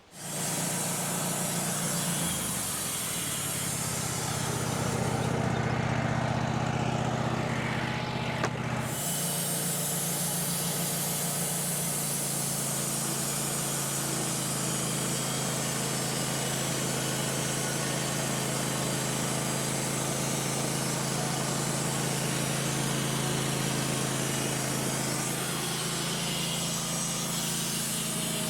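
Sawmill engine running steadily while the blade saws through a big maple log, with a rushing cutting noise over the engine. The engine note changes slightly about two seconds in and again near nine seconds.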